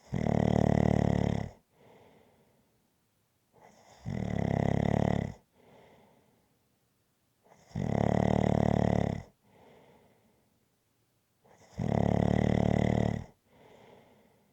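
Rhythmic snoring: four loud, drawn-out snores about four seconds apart, each lasting about a second and a half and followed by a much softer breath.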